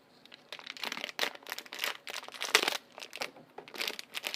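Packaging of a blind-box mystery pack crinkling and rustling in irregular crackles as it is opened by hand.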